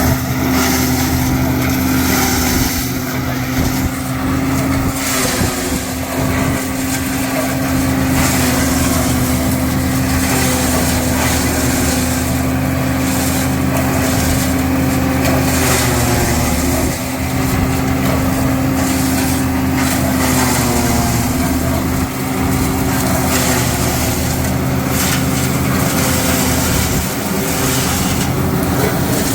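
Forage (silage) harvester running steadily under load, a constant engine drone with a strong held note. The pitch sags briefly about 17 and 21 seconds in.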